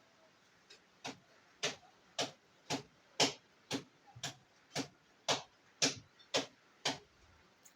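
A hand slapping a person's body in a steady rhythm during massage treatment: about a dozen even, sharp slaps, roughly two a second.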